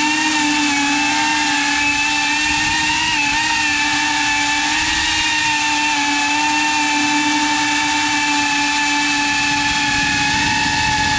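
iFlight Protek35 cinewhoop FPV drone's motors and ducted propellers whining steadily, the pitch wavering slightly as the throttle shifts, heard up close from the onboard camera.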